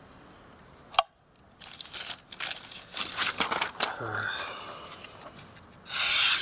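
A sheet of paper rustling and crinkling as it is handled, after a sharp click about a second in. Near the end, a Lionsteel SR-1 folding knife's blade slices through the paper with a loud steady hiss: a paper-cutting test of the edge after it has cut through a wooden block.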